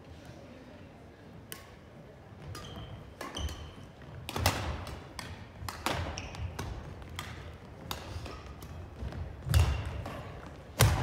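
Badminton play on a wooden gym floor: irregular sharp racket hits on the shuttlecock and footfalls thudding on the court, with a few short squeaks of shoes; the loudest thuds come near the end.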